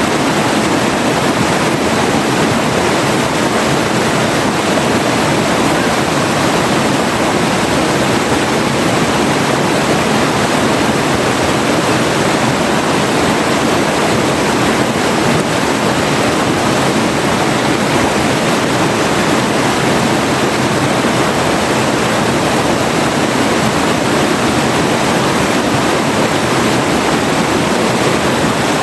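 River water flowing, a steady, unbroken rush with no separate splashes or other events.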